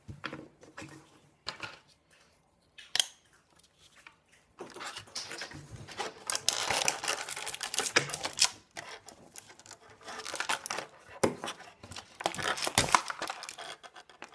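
Clear plastic toy packaging crinkling and rustling while it is handled, with small clicks and snaps of hard plastic toy pieces. Only a few scattered clicks come at first; the crinkling becomes dense about four and a half seconds in.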